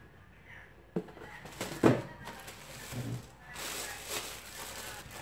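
Clear plastic wrapping crinkling as a boxed can opener is lifted and handled, preceded by two knocks about one and two seconds in, the second the louder.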